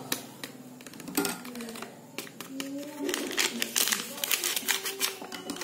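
Foil drink-powder sachet crinkling as it is squeezed and tapped to empty the last powder into a glass, with a run of small clicks and crackles.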